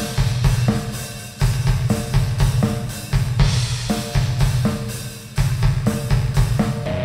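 Loud heavy band music: a drum kit played hard with snare, bass drum and cymbals, over bass guitar and guitar.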